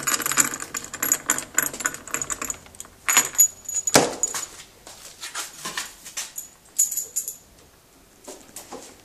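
Metal hand tools clattering and jangling as they are rummaged through in a crowded drawer, with one louder knock about four seconds in and fewer clicks near the end.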